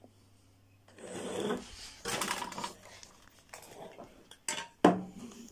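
An animal trotter rubbed back and forth on a rough stone, making gritty scraping in a few strokes as it is cleaned, followed by a sharp knock near the end.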